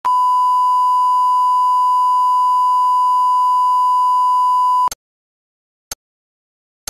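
Steady single-pitch reference test tone that plays with colour bars and cuts off abruptly about five seconds in. After it, a film-leader countdown gives short clicks, one a second.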